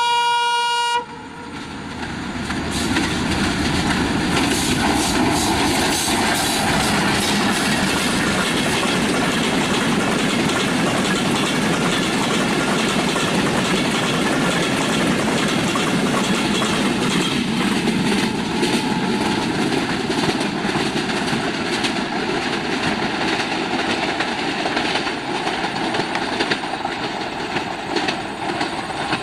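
A train running on the rails: a steady rumble with the clatter of wheels over rail joints, building up over the first few seconds and then holding. At the very start a single horn note sounds for about a second and cuts off.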